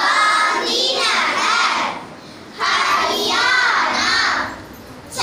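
A group of girls chanting together in unison, in sing-song phrases separated by two short pauses.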